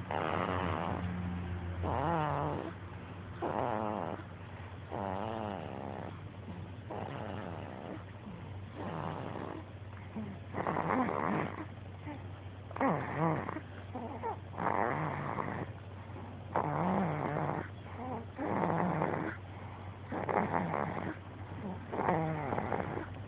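A sleeping baby snoring: a pitched, wavering snore on each breath, repeating about every one and a half to two seconds, over a steady low hum.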